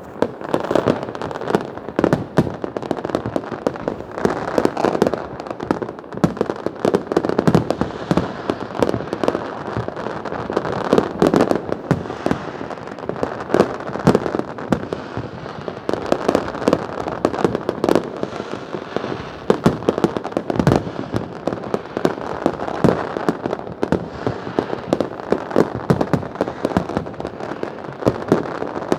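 New Year fireworks display: a dense, continuous barrage of bangs and crackling firecrackers, many reports a second without pause.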